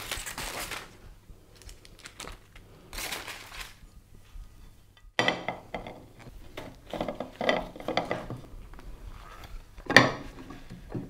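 Aluminium foil crinkling as it is peeled off a ceramic pudding basin, then the basin and a china plate clinking and knocking against each other and the wooden board as the pudding is turned out, with the loudest knock near the end.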